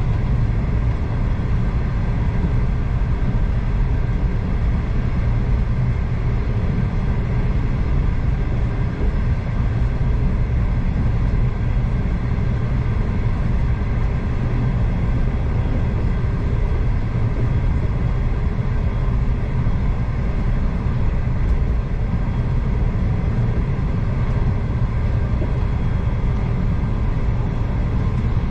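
Passenger train running steadily, heard from inside a carriage: a constant low rumble of the running gear on the rails, with no breaks or changes.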